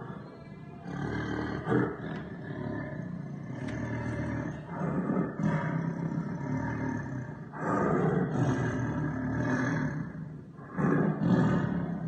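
Big-cat roar sound effect, standing in for a sabertooth cat: about five long, rough roars in a row, each two to three seconds long with short breaks between them.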